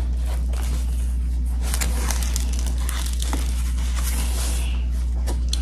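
Paper and plastic plant wrapping rustling and crinkling in short bursts as wrapped pots are handled and lifted out of a cardboard box, over a steady low hum.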